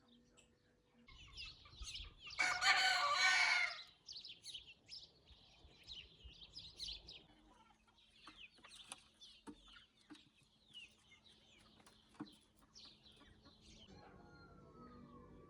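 A rooster crows once, a long call about two and a half seconds in that is the loudest sound, while small birds chirp on and off throughout. A few light clicks come later.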